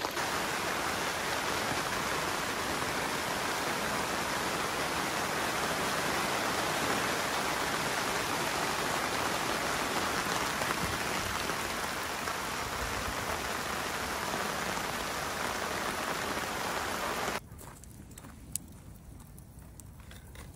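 Heavy rain pouring down, a steady dense hiss of drops splashing on waterlogged ground. It cuts off abruptly about 17 seconds in, leaving a much quieter background with a few faint clicks.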